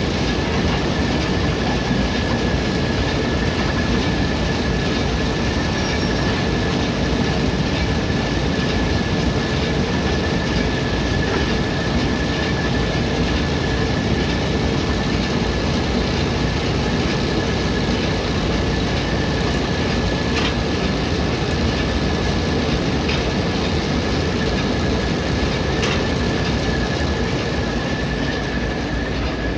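An engine running steadily at idle: a constant low rumble with a steady high whine over it.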